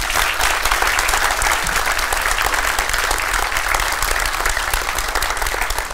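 Audience applauding: many people clapping together, holding steady at an even level.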